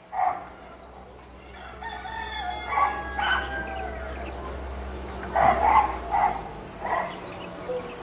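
Rooster crowing and chickens clucking: scattered short calls, the loudest cluster about five and a half seconds in, over a steady low hum.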